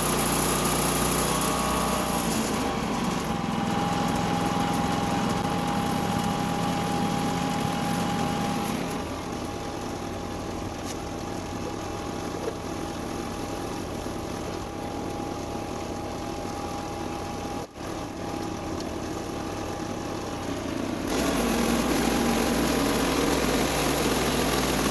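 Woodland Mills HM126 portable bandsaw mill's small gas engine running as the blade cuts through a pecan log. It gets quieter about nine seconds in and louder again near the end.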